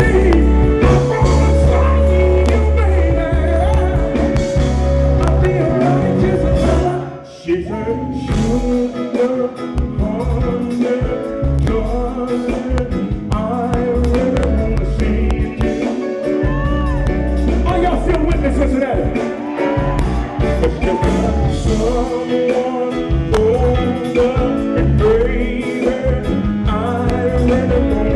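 Live R&B/funk band playing, with a lead vocal or guitar line sliding over a steady bass groove; the music drops out briefly for a moment about seven seconds in, then comes back in.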